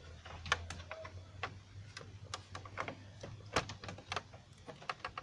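Scattered light clicks and knocks of a power cord and plug being handled and plugged into a Sony CFD-E95 portable radio, over a faint low hum.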